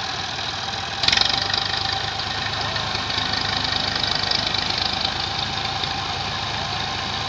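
Massey Ferguson 135 tractor's diesel engine running under a heavy load, pulling a towering stack of grain sacks. About a second in it suddenly gets louder and stays louder for about four seconds, then settles back to a steady run.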